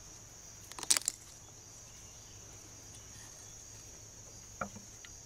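Insects chirring steadily at a high pitch, with a brief clattering rattle about a second in as the old trolling motor's wire leads are picked up and handled.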